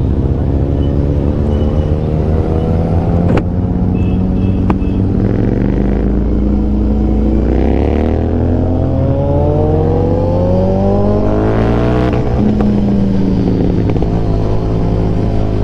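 Royal Enfield Continental GT 650's parallel-twin engine under way, picked up by a mic inside the rider's helmet. The engine pitch climbs steadily as the bike accelerates, then drops sharply at a gear change about three-quarters of the way through and runs on steadier.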